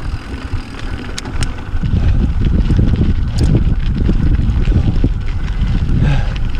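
Wind buffeting the microphone while a mountain bike rolls over a dirt trail: a dense low rumble that gets louder about two seconds in, with a few sharp clicks and rattles.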